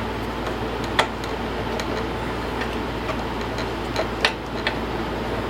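A few sharp clicks and light taps from hand work on a mower's fuel line and carburetor fittings, the loudest about a second in and again near the end, over a steady background hum.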